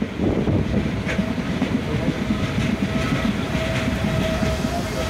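Train running along the track, its wheels rumbling and clacking on the rails, with a faint steady whine joining in about halfway.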